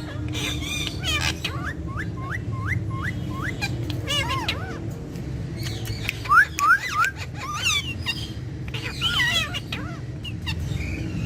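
Pet parrots calling and chattering. One bird gives runs of short rising whistles, about five in a row early on and three more about halfway, and warbling squawks come in between.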